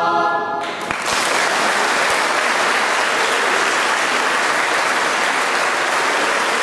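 A choir's held final chord stops just under a second in, and an audience then breaks into steady applause.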